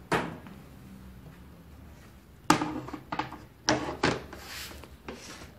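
A clear plastic bowl of cut potato strips in cold water being handled: a run of sudden clunks and splashes, the sharpest about two and a half seconds in.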